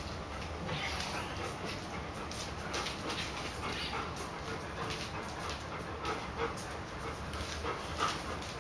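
German Shepherd puppy and adult German Shepherd playing on a tiled floor: panting, with many quick clicks of claws and paws on the tiles and a few short high-pitched sounds.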